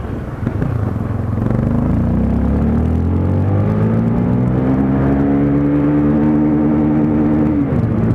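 Motorcycle engine accelerating under throttle, its pitch rising steadily for about seven seconds, then dropping abruptly near the end.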